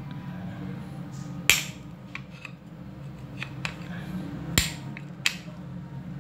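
Starter motor parts being handled and fitted during reassembly: three sharp clicks or knocks, about a second and a half in and twice near the end, with lighter ticks between, over a steady low hum.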